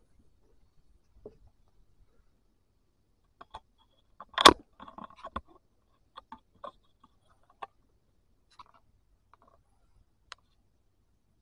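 Hunter rubber boots shifting and stepping on concrete: scattered short scuffs and light clicks, with one loud knock about four and a half seconds in.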